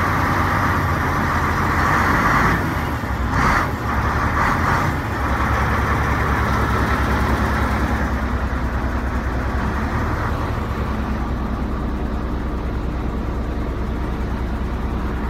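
Mack E7 straight-six turbodiesel idling steadily, still cold after a cold start, heard from inside the truck's cab. A brief clatter comes about three and a half seconds in, and a higher hiss over the engine fades away after about eight to ten seconds.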